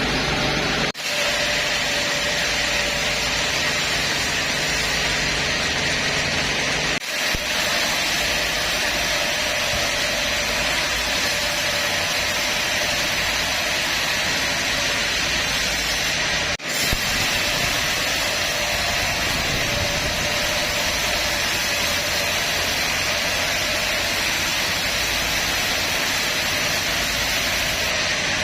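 Sawmill band saw running steadily, a continuous mechanical noise with a faint steady hum. It drops out for an instant three times.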